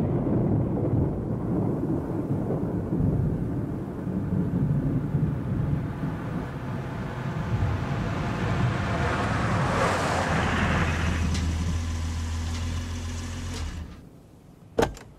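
Sound effect of a car driving: a steady rumble of road and engine noise with a swell of higher hiss around ten seconds in, then a low engine hum that stops about fourteen seconds in. A single short click follows just before the end.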